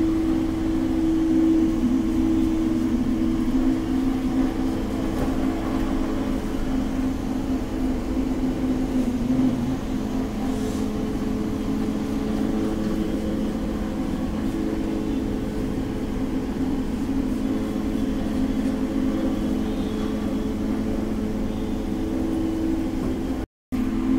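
Single-disc rotary floor machine running steadily, its steel wool pad buffing a marble floor during crystallization. It makes a steady motor hum of several held tones over a rough rubbing noise, and the sound drops out for a moment near the end.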